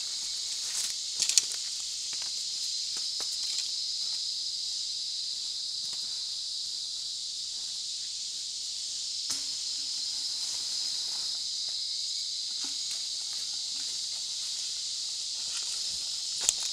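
Steady high-pitched insect chorus, with a few short sharp snaps: two about a second in, one about nine seconds in and one near the end.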